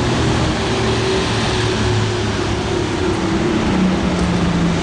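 Street traffic noise: motor vehicle engines running with a steady low hum whose pitch shifts a little, under a constant wash of city noise.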